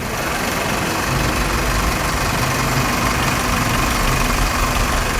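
2001 Toyota Corolla's four-cylinder engine idling steadily.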